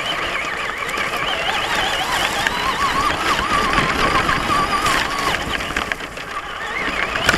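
Electric motor of a Traxxas Stampede RC truck whining, its pitch wavering up and down with the throttle, over rough noise from the truck driving across grass.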